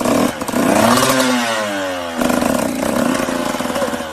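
Motorcycle engines revving: first an engine whose pitch swings down and back up, then, after a sudden change about two seconds in, an engine running with a steady rapid beat.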